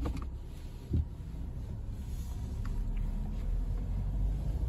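Low, steady cabin rumble of a 2022 Volkswagen Tiguan with its 2.0-litre engine, driving slowly and growing slightly louder, with one dull thump about a second in.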